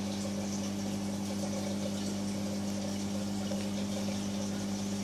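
Marine reef aquarium's pumps humming steadily over the even rush of circulating water.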